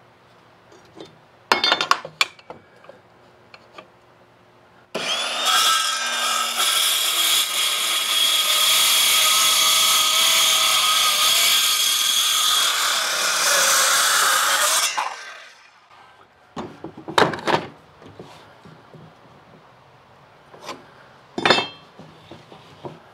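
Ridgid circular saw cutting through a 2x8 board, starting suddenly about five seconds in, running for about ten seconds and spinning down with a falling whine. Before and after the cut, scattered knocks and clatters of the board and saw being handled.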